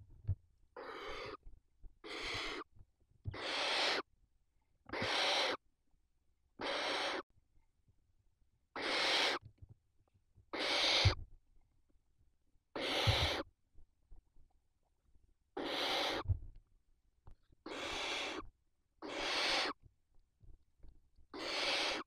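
Barn owl chicks giving their rasping, hissing begging calls, about a dozen drawn-out hisses each lasting about half a second to a second, repeated every couple of seconds as an adult with food stands among them. A few soft low thumps come from the birds moving against the nest box near the middle.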